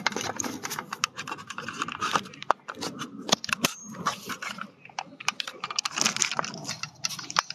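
Handling noise of a phone being moved: irregular clicks, knocks and rubbing scrapes on its microphone.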